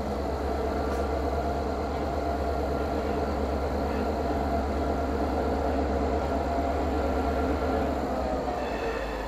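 Diesel locomotives, a GP10 and a GP38-2, running with a steady low engine drone as they approach at the head of a freight train.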